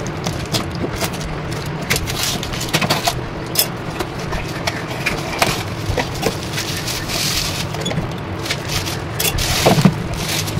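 Cardboard parcel being cut open with scissors and unpacked: clicks and crackles of packing tape and cardboard flaps, then crinkling plastic bubble wrap pulled away, loudest near the end. A steady low hum runs underneath.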